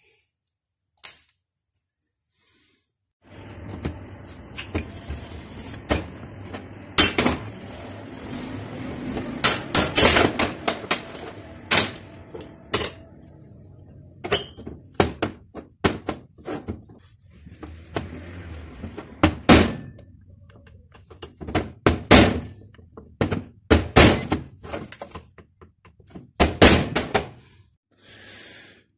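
Irregular knocks and clanks of tools on metal engine parts, heard while a brushcutter engine is taken apart. The knocks come over a faint low hum, begin about three seconds in and come in clusters, several of them loud.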